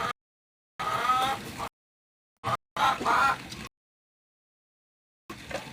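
Chickens clucking and calling in short bursts, the two longest calls coming about a second in and about three seconds in.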